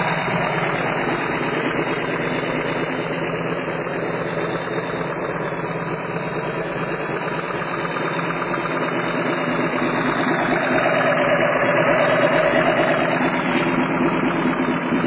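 Air-cooled 1200 cc Harley-Davidson V-twin with an S&S Mikuni carburettor running at idle on a stationary motorcycle, a steady lumpy idle that grows somewhat louder about two-thirds of the way through.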